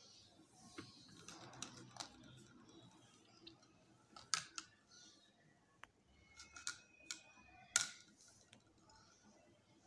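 Light clicks and taps of plastic toy pieces being handled, scattered and irregular, the sharpest about four seconds in and just before the end.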